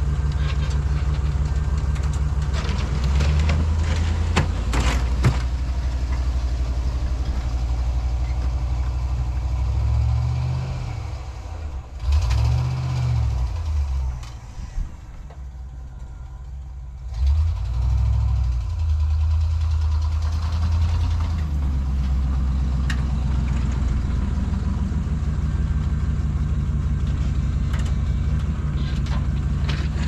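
Square-body pickup plow truck's engine running as it pushes snow, rising and falling in pitch a few times as it revs and changes direction. It fades to a quieter stretch about halfway through, while the truck is at the far end of the yard, then comes back up. There are a few sharp clanks around four to five seconds in.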